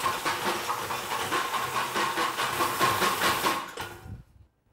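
W.S. Tyler Ro-Tap RX-29 mechanical sieve shaker running, its motor swirling the stack of metal soil sieves while the hammer knocks on the lid about two to three times a second, with a steady metallic ring over a rattling hiss. It fades out near the end.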